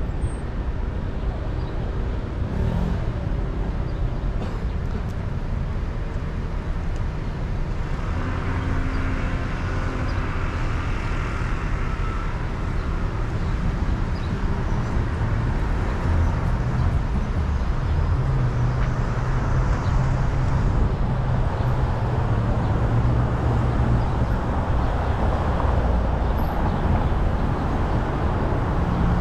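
City traffic heard from a moving car: a steady low rumble of engine and tyre noise on the road, with other vehicles passing. It swells briefly about a third of the way in and gets a little louder in the second half.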